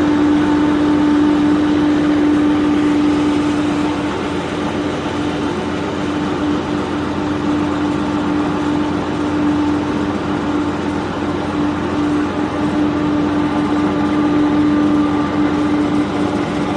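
Engine of the boat carrying the recorder running steadily, heard on board as a constant droning hum.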